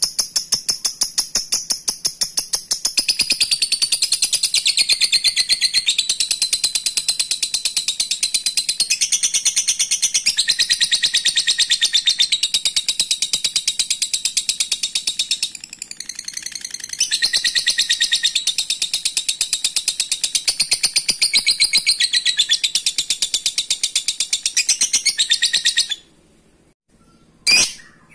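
Lovebird's long chattering trill (ngekek panjang): a very fast, unbroken run of sharp high notes that weakens briefly about halfway, then stops near the end, followed by a single sharp call.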